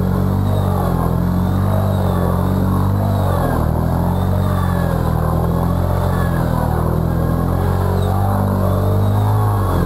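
Arctic Cat ATV engine running under throttle while pulling through a muddy water puddle, its pitch holding steady with small rises and dips.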